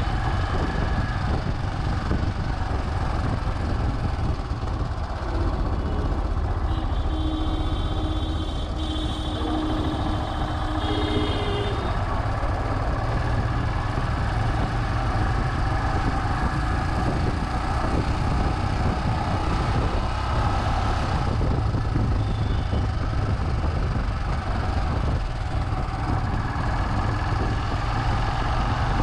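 Royal Enfield Himalayan's single-cylinder engine running steadily under way, with wind and road noise on the GoPro's built-in microphone. A steady tone sounds for about five seconds early in the ride.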